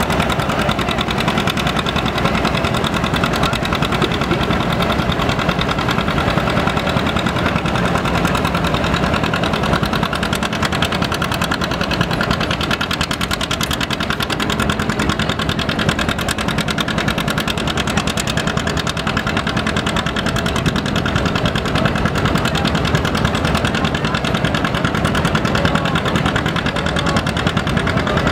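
Farm tractor engines running steadily near idle, at an even level throughout.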